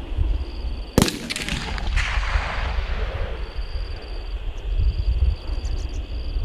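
A single rifle shot fired with live ammunition about a second in, followed by an echo that rolls away over the next two seconds.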